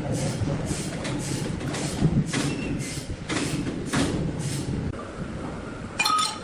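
Sawmill machinery running: a low rumble with a regular swishing beat about two to three times a second. Near the end comes a short, sharp metallic clang that rings briefly.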